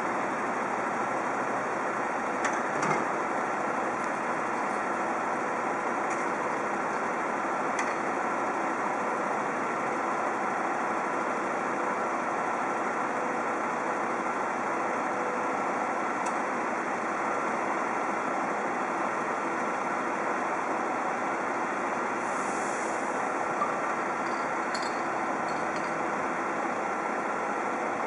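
MAN sewer-cleaning truck running steadily while its crew jets the sewer: a constant engine-and-machinery drone. A few faint clicks come about three seconds in and again near the end.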